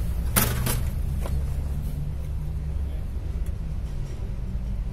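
A metal PC tower case being grabbed and turned around, giving a few sharp knocks in the first second and a half, over a steady low rumble.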